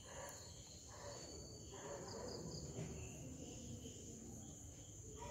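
Crickets chirring steadily in a faint, continuous high-pitched night chorus, over low background noise.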